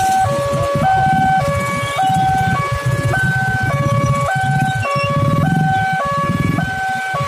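Railway level-crossing electronic warning alarm sounding a steady two-tone ding-dong, stepping between a high and a low note about twice a second. Motorcycle engines run underneath as a low rumble.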